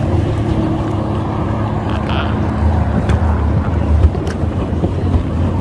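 Wind buffeting the microphone and water sloshing around a pedal boat, with a steady low engine hum from a nearby boat that fades out about halfway.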